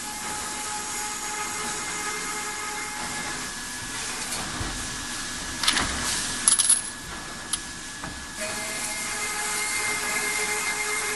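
Automatic burr-free pipe cutting machine running with a steady whine over a hiss. A quick run of sharp metallic clinks comes about six seconds in, and the whine changes pitch a little after eight seconds.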